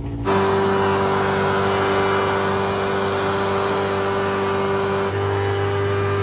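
Hovercraft engine and propeller fan running steadily at high speed: a loud, even drone over a rushing hiss. It cuts in suddenly and shifts slightly in pitch near the end.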